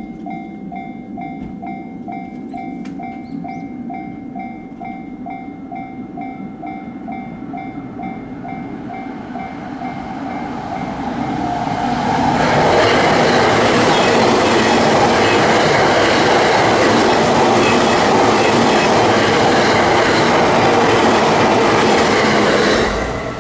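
Japanese level-crossing alarm ringing in a steady two-tone pattern, about two rings a second. Partway through, a JR East E353-series limited express train approaches and passes through the crossing with loud wheel and rail noise. The train noise cuts off suddenly near the end while the alarm keeps ringing.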